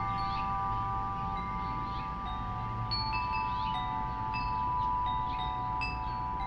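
Wind chime ringing in the breeze: a few long, overlapping tones sustain throughout, while new, higher notes are struck irregularly, about every half second to a second.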